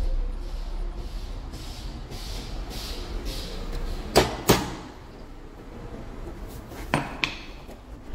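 Sharp metal-on-metal clinks, two quick pairs a few seconds apart, as a steel rod and small gear are knocked against a part held in a steel bench vise. Before them, a faint rasp repeats about twice a second.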